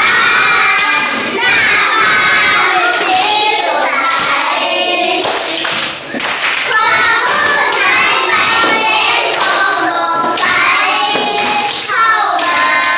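A group of young children singing a song together while clapping their hands, with a short break in the singing about halfway through.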